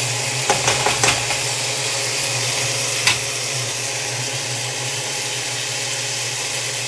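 Chicken pieces sizzling as they fry in a nonstick skillet, a steady hiss over a low hum. A spatula scrapes and knocks against the pan several times about half a second to a second in, with one more knock about three seconds in.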